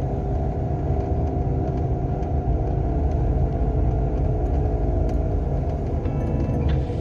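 Renault Sandero driving along, a steady low rumble of engine and road with faint steady tones over it; the car's alternator bearing is failing. A little music creeps in about six seconds in.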